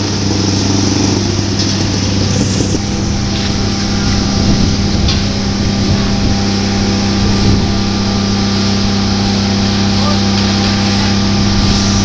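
An engine running steadily with a constant low hum, over a dense background of traffic and site noise.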